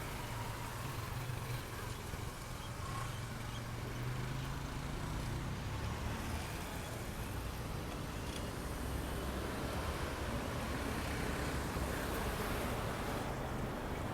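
Steady road traffic: cars passing with a low engine and tyre rumble that swells and eases.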